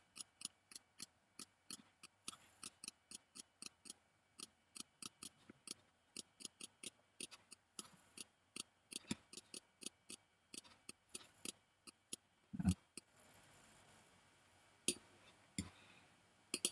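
Faint computer mouse clicks in a quick, even run of about four to five a second, placing the points of a draw mask one after another. About three quarters through there is a single duller knock, and after it the clicks come only a few at a time.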